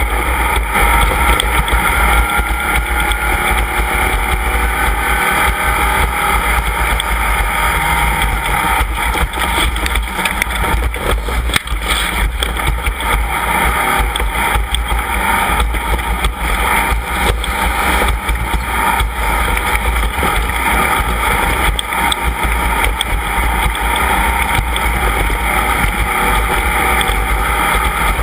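Off-road race vehicle engine running steadily and loudly, its pitch drifting a little, with scattered knocks and rattles throughout.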